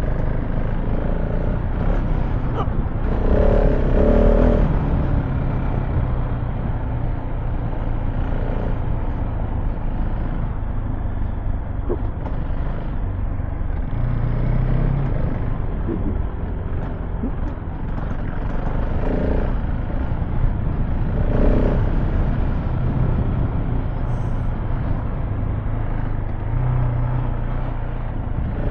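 KTM 690 Enduro R single-cylinder engine running while riding off-road, its pitch rising and falling a few times, under a constant rush of noise.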